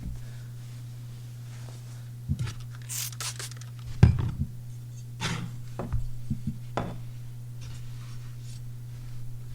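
A few strokes of a Chris Reeve Sebenza's MagnaCut blade scraping on a sharpening stone, mixed with sharp knocks from the knife and stone being handled; the loudest knock comes about four seconds in. The strokes are raising a burr to grind out a small chip in the edge. Under it runs a steady low hum from a computer hard drive.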